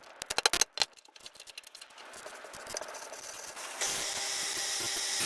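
A quick run of sharp knocks and clicks, then scattered light taps, as an old hammer is handled; about four seconds in, a power tool starts working on it and runs steadily with a loud hiss.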